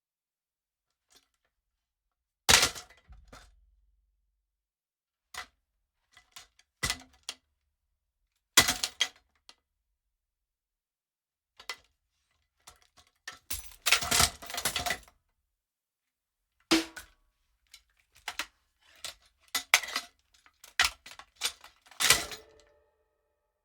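A drum kit's kick pedal crashing and clattering in a string of irregular metallic knocks and bangs. Some come singly, some in quick clusters, with quiet gaps between them.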